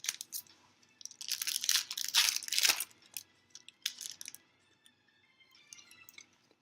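A foil Yu-Gi-Oh booster pack being torn open and its wrapper crinkled: a loud stretch of tearing and crinkling starting about a second in and lasting nearly two seconds, followed by light clicks and rustles of the cards being handled.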